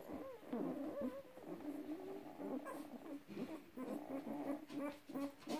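Newborn Newfoundland puppies, four days old, whimpering and squeaking: many thin, wavering cries overlapping.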